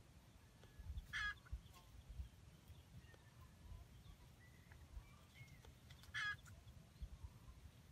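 Wild chicken (junglefowl) giving two short, loud calls about five seconds apart, with faint whistled bird calls between.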